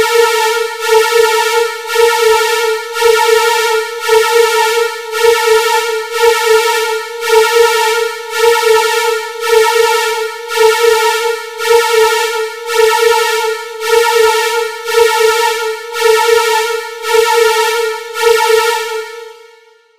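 Electronic alarm tone for an EAS-style emergency alert: one steady, buzzy pitch that swells and dips about once a second, then fades out near the end. It is the attention signal that comes before the spoken warning.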